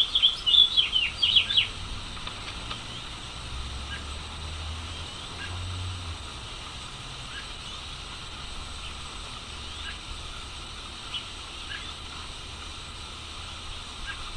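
Northern cardinal calling: a quick flurry of sharp, downward-sweeping notes in the first second and a half, then single faint notes every second or two over a steady hiss.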